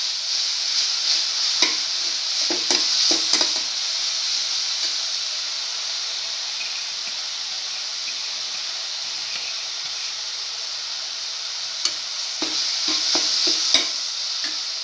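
Banana pieces and grated coconut sizzling in a stainless steel frying pan. A perforated metal spoon scrapes and clicks against the pan as the mixture is stirred, in two spells: about two seconds in and again near the end.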